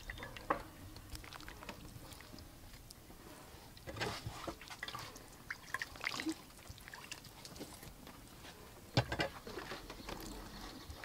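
A spoon basting grilled corn cobs with a green-onion sauce: soft wet drips and dabs, with a few light clicks in small clusters about four seconds in and again near nine seconds.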